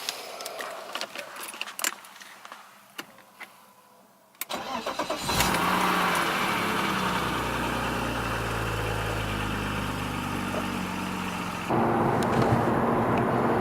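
A few clicks and knocks, then a BMW M3's engine is cranked and starts about five seconds in and settles into a steady idle. About two seconds before the end the sound steps up louder and fuller.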